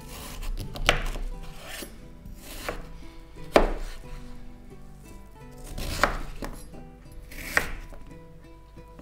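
A kitchen knife cutting through beetroot onto a wooden cutting board: about five separate chops spread out, the one in the middle the loudest, over soft background music.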